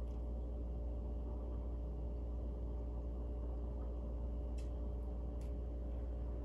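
Steady low room hum, with a metal spoon spooning pudding into a small glass jar giving two faint light clicks on the glass a little under a second apart, about four and a half seconds in.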